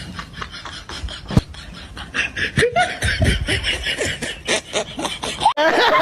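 People laughing and snickering in quick, repeated bursts, with a single sharp knock about a second and a half in. Near the end the sound cuts off abruptly to a louder, busier sound.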